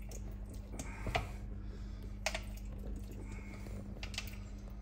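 A few sharp clicks and light knocks, as spoons and spice containers are handled while a masala is put together, over a steady low hum.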